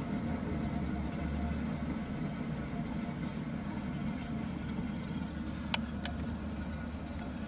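Window air conditioner with a rotary compressor running with a steady low hum, with two short clicks a little past halfway. The owner judges the unit to be working properly with its refrigerant charge intact.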